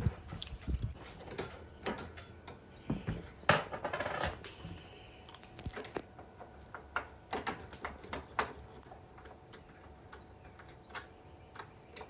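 Irregular metal clicks, clinks and knocks as an old deadbolt is unscrewed and pulled from a door. The sharpest knock comes about three and a half seconds in, followed by a short busy rattle; after that there are only occasional light ticks.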